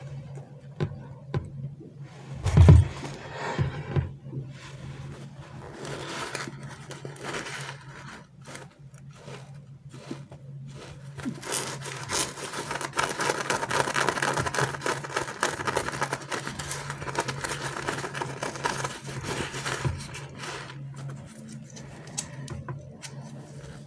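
Hands handling squishy toys and their plastic packaging: scraping and crinkling, with one loud thump about three seconds in and a denser, louder stretch of crackling in the middle. A low steady hum runs underneath.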